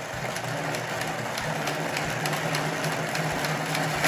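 Motorized toy race track running: a steady motor hum with a quick run of clicks and rattles as the small plastic cars go around the track.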